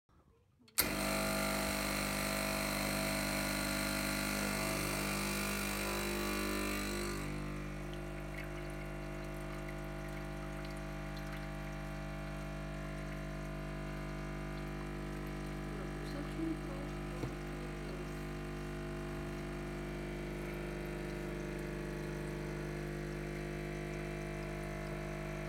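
Gaggia Classic's vibratory pump buzzing steadily while it pushes water through the coffee to pull an espresso shot. It starts suddenly about a second in, and about seven seconds in its buzz turns quieter and loses its bright hiss.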